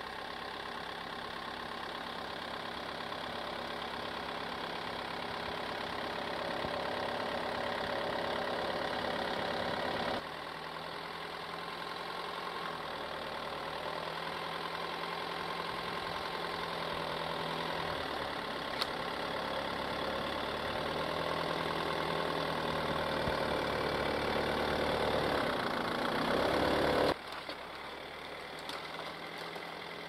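GAZ Sobol 4x4 van's engine running steadily as the van crawls through deep snow toward the camera, growing louder as it comes closer. The sound drops abruptly about ten seconds in and again near the end.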